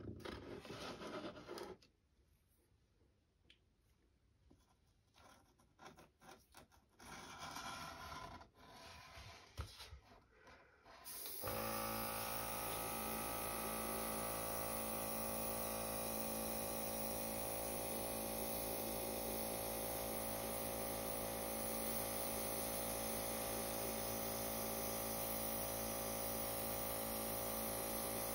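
Hands handling a plastic model and rubbing against a cardboard box, in uneven scrapes, for about the first eleven seconds. Then an airbrush compressor starts abruptly and runs with a steady hum, with the hiss of air from a Fengda FE-136K airbrush spraying paint.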